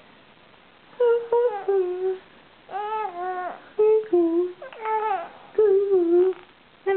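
A 77-day-old baby cooing: about six short, high, smooth vocal sounds with short pauses between them. These are the first speech-like sounds of an infant of about two and a half months.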